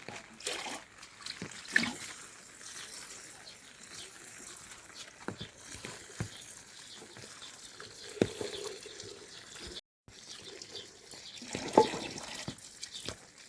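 Water trickling and splashing, with scattered clicks and knocks.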